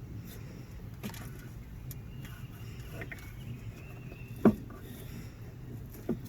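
Steady low background hum with two knocks: a sharp loud one about four and a half seconds in and a smaller one near the end.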